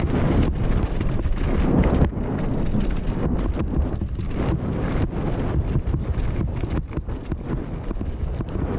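Commencal mountain bike descending a rough gravel trail at speed: a steady wind rumble on the camera microphone, with tyres crunching over loose stones and a fast, irregular clatter of chain and frame knocks.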